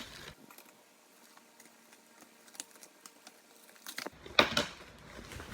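Plastic packaging wrap being handled: a few faint clicks and rustles, then louder crinkling about four seconds in.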